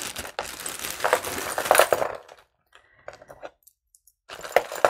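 Costume jewelry being handled: a plastic baggie crinkling and small beads and chains clinking for about two seconds, then a short lull and a few more clinks near the end.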